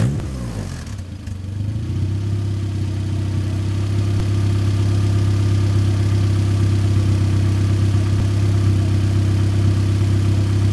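Race car engine just after starting: its revs fall for the first second or two, then it idles steadily at about 1,000 rpm.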